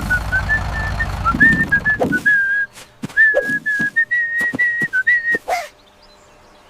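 A whistled tune of short, bright notes stepping up and down, with scattered knocks and clicks among them; the whistling stops about a second before the end.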